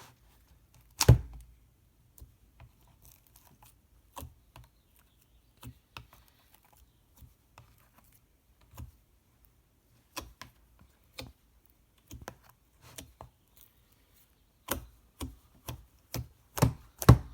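Hands squeezing and poking slime, giving scattered sticky clicks and small pops, with a heavier thump about a second in and a quicker run of clicks near the end.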